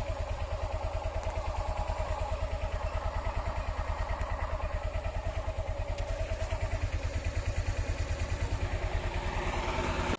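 A small engine, likely a motorcycle's, running steadily with a rapid, even pulse. It cuts in and out abruptly.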